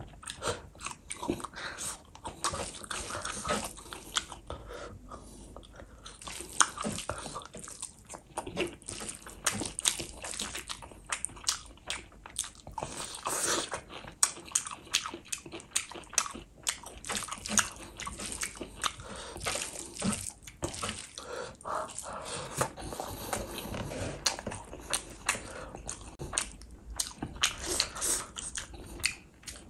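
Close-miked eating sounds: wet, clicking chewing and biting of chicken and rice in gravy, mixed with the squish of rice and gravy being squeezed by hand.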